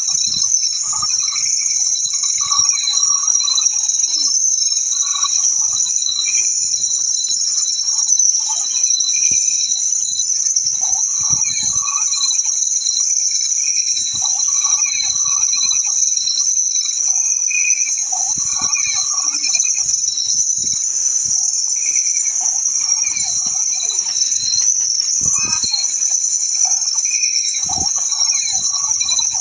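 Steady high-pitched insect chorus, with fainter, irregular chirping pulses lower in pitch.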